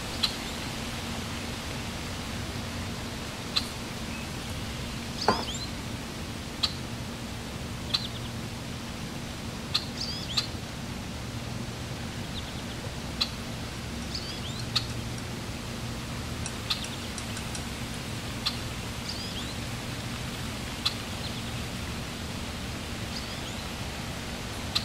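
Hot cooking oil sizzling with a steady hiss over a low hum, with sharp pops and crackles every second or two.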